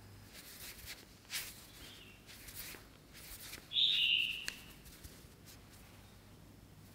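Hands pulling and folding dragon's beard candy strands through cornstarch, with a few soft rustling swishes. About four seconds in, a loud, short, high squeaky creak comes as the hand squeezes the strands in the packed cornstarch.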